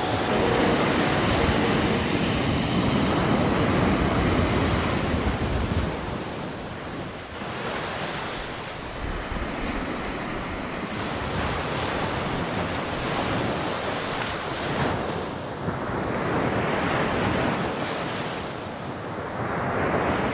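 Sea surf breaking and washing up a beach, swelling and easing in slow surges, with wind on the microphone.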